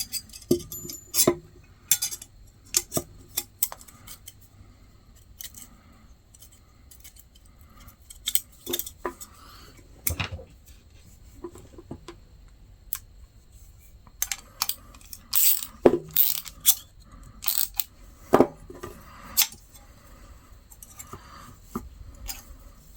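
Steel parts of a pair of vintage Boker hand shears clinking and clicking as they are put back together, in scattered sharp taps that come thickest in the second half.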